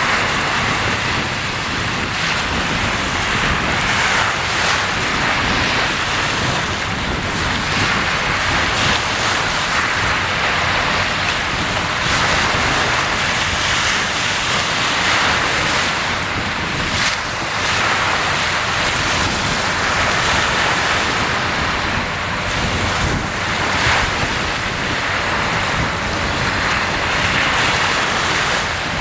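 Sea waves washing in, a continuous surf hiss that swells and eases every few seconds.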